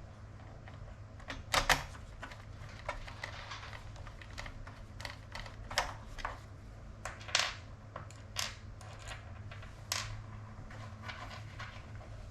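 Hard plastic and metal parts of an iPad yoke mount being handled and fitted together: a series of irregular sharp clicks and knocks, the loudest a double knock about a second and a half in.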